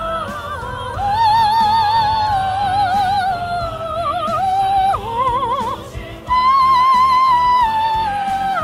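A high male voice singing a wordless, siren-like operatic vocalise: long held notes with a wide vibrato and glides between them, and a loud, high note held from about six seconds in.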